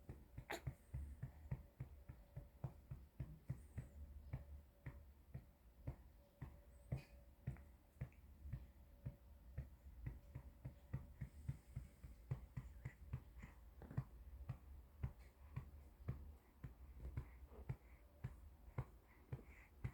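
A hand patting a baby's back to bring up a burp: soft, even pats about twice a second.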